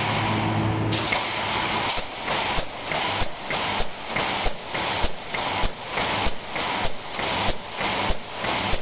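Automatic wire mesh welding machine cycling. A steady hum for about the first second, then a regular beat of sharp welding strokes a little under two a second, each with a rush of noise in between.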